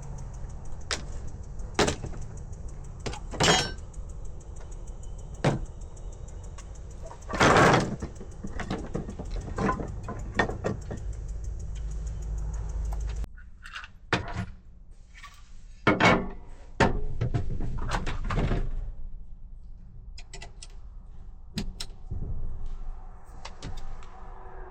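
Scattered knocks, clicks and rattles of parts being handled and fitted by hand, with a few louder clattering bursts. A low steady hum underneath stops about halfway through.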